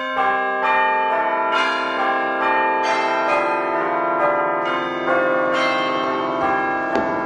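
Bells ringing a run of notes, about two strikes a second, each note sustaining and overlapping the next so they blend into a shimmering cluster.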